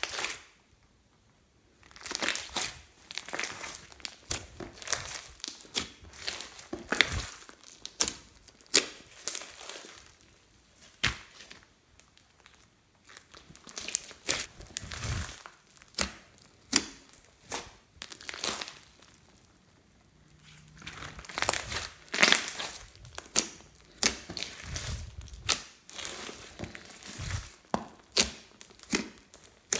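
Large batch of red glitter slime studded with small beads being squeezed, pressed and folded by hand: runs of sticky crackling and popping clicks, with brief pauses between handfuls.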